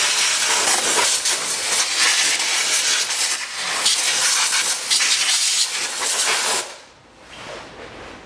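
Compressed-air blow gun hissing loudly as it blows dust out of an empty car air filter housing, with short dips, for about six and a half seconds before stopping; a brief, fainter puff follows near the end.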